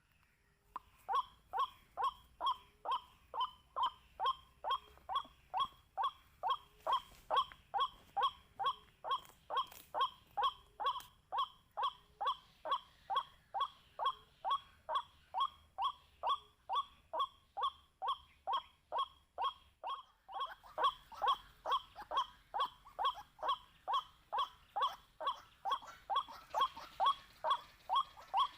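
White-breasted waterhen calling: a long, even run of short, identical notes, about two a second, with a brief break about twenty seconds in.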